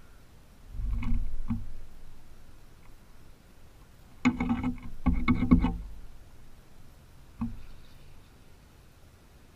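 Belted kingfisher moving on the wooden post right beside the camera: short bursts of scraping, knocking and feather rustle. The busiest cluster comes about four seconds in, with single knocks before and after.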